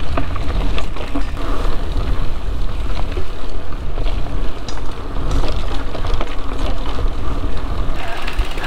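Mountain bike ridden over bumpy dirt trail: a heavy, uneven rumble of wind buffeting the camera microphone, with tyre noise and frequent small clicks and rattles from the bike jolting over bumps.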